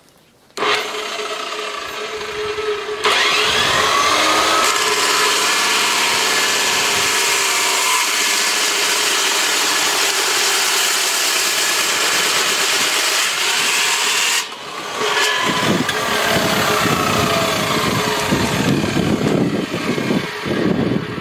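A power tool cutting through the steel and aluminium of an AR-15 rifle. It starts up about half a second in and gets much louder at about three seconds as it bites in. It cuts steadily with a high hiss and wavering pitch, eases off briefly about two-thirds of the way through, then cuts on.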